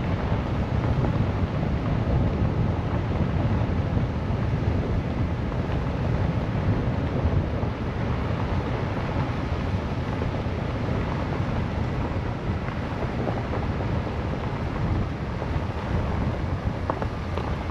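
Strong wind blowing across the microphone: a steady, loud rush that is heaviest in the low end and never lets up.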